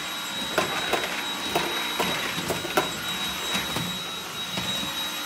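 Cordless stick vacuum running steadily with a thin high whine. Sharp plastic clacks, about one or two a second, come from a toddler's ball-popper push toy being pushed along.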